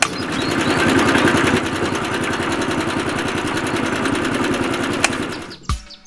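Small electric motor of a homemade toy concrete mixer truck running steadily as it turns the plastic mixer drum. It starts abruptly as the rocker switch is flipped on and stops about five and a half seconds in.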